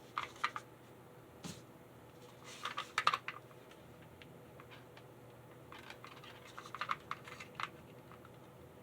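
Irregular clusters of light clicks and taps from small parts of an opened model locomotive being handled and fitted by hand.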